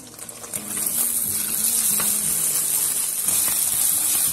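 Beaten egg frying in a nonstick frying pan: a sizzle that turns suddenly much louder about half a second in and then stays steady.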